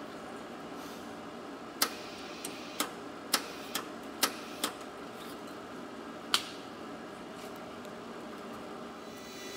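Hands working in the open wire-feed compartment of a Hobart 140 MIG welder during a change of flux-core wire spool. Sharp metallic clicks, about eight of them, come mostly between two and five seconds in, with a last one near six and a half seconds, over a steady hum.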